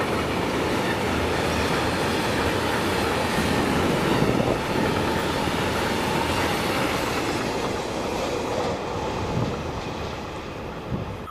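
Freight train of tank wagons rolling past, its wheels running over the rails. The sound fades over the last few seconds as the end of the train goes by.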